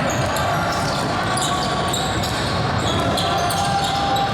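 Basketball game sound in a gym: a ball bouncing on the court over a steady background of voices, with short high-pitched sounds scattered throughout.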